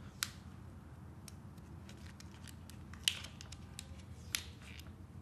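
Small clicks and ticks from handling a cochlear implant's sound processor and a card of button-cell batteries while the dead battery is being swapped. There are three sharper clicks, one right at the start, one about three seconds in and one about four and a half seconds in, with fainter ticks between.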